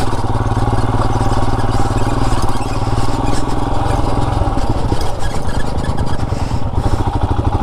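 Royal Enfield Himalayan's single-cylinder engine running at low speed on a rough dirt track. Its regular thump grows more distinct past the halfway point.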